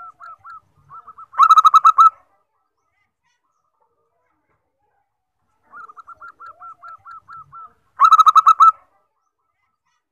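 Zebra dove singing: two phrases, each a run of soft, quick cooing notes that ends in a louder burst of rapid notes, about seven seconds apart.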